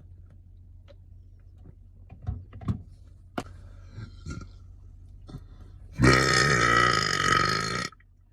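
A man's long, loud burp lasting about two seconds, coming about six seconds in, brought up after drinking root beer. A few faint clicks come before it.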